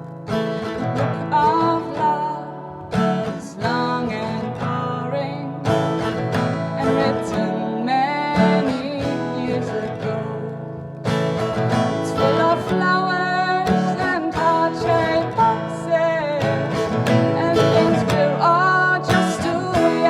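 Music: a slow song with guitar and a singing voice.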